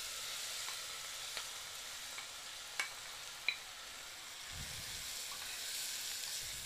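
Finely chopped onions sizzling steadily in hot mustard oil in a pot, with a few faint clicks as the spatula scrapes and stirs them.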